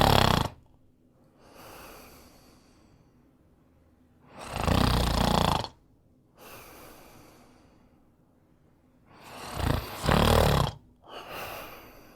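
A man snoring: loud, rattling snores about every five seconds, each followed by a softer, airier breath.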